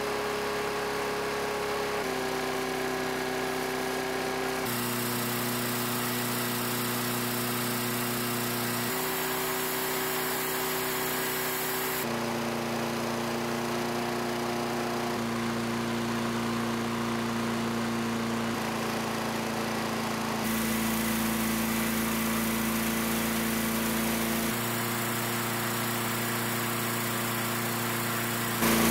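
Toro Recycler lawn mower's single-cylinder engine running steadily with honey in its crankcase in place of oil. The pitch shifts slightly at sudden breaks every few seconds.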